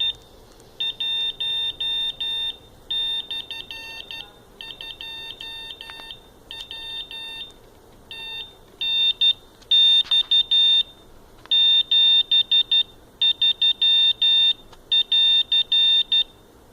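Morse code keyed by an Arduino Uno: one high-pitched beep switched on and off in short dits and longer dahs, grouped into characters with short pauses between. The keying stops shortly before the end.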